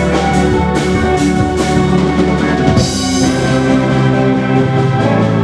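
Band playing live: electric guitar over a drum kit keeping a steady beat.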